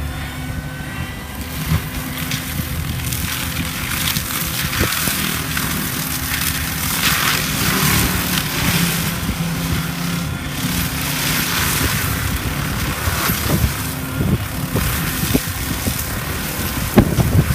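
ASV RT-110 skid steer's engine running steadily under load while its forestry mulcher head grinds brush, with irregular surges of shredding noise over the engine.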